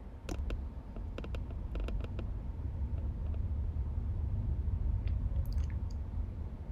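Low rumble of a car rolling slowly through a toll lane, heard from inside the cabin, with a cluster of sharp clicks and creaks in the first two seconds and a few more near the end.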